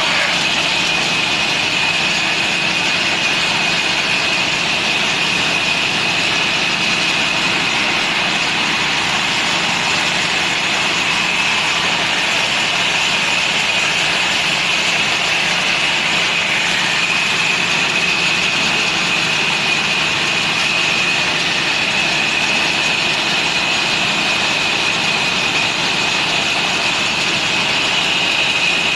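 Sawmill machine running steadily, with a constant high-pitched whine over a dense mechanical noise.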